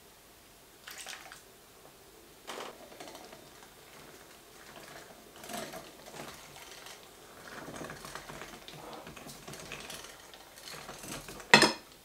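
Metal whisk stirring a batter in a glass bowl, with irregular scrapes and clinks of wire against glass, and one sharp, louder knock near the end.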